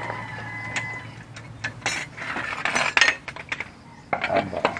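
Several metallic clinks and scrapes of a steel L-shaped lug wrench being fitted onto the lug nuts of a car's alloy wheel, loudest about two to three seconds in.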